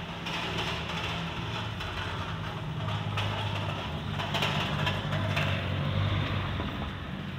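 A motor vehicle's engine running with a low, steady hum. It grows louder shortly after the start, is strongest through the middle and eases off near the end.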